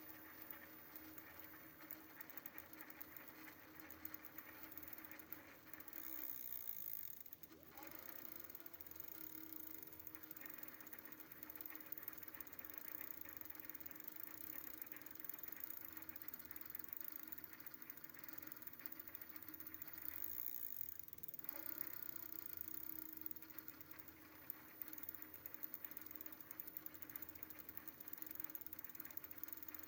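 Geared rear hub motor of an e-bike (Bafang planetary-gear hub motor) running with a steady mechanical whir and whine. It cuts out briefly twice and starts up again. The owner treats the gear noise as a defect.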